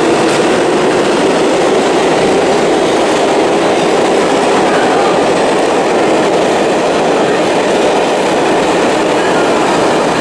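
Subway train running on the track beside the platform: a loud, steady rumble of wheels on rails.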